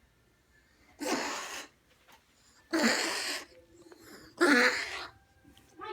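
A pet coughing three times, harsh noisy bursts each under a second long, spaced about a second and a half apart; the animal has a cold.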